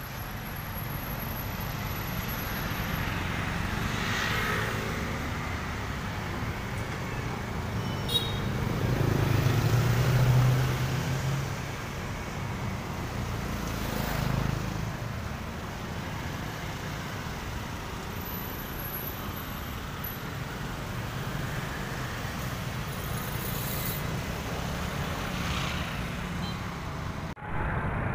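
Street traffic: a steady hum of passing motorbikes and cars, with one vehicle passing louder about ten seconds in.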